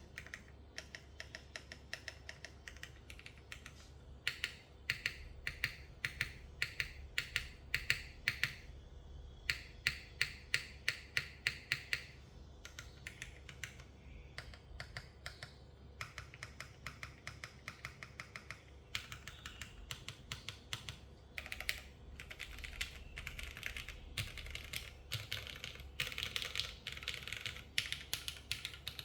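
Typing on a TKD Cycle 8 mechanical keyboard with modded vintage Cherry Black linear switches in an aluminium plate, gasket O-ring mount, and GMK keycaps. Rapid keystrokes come in runs separated by short pauses.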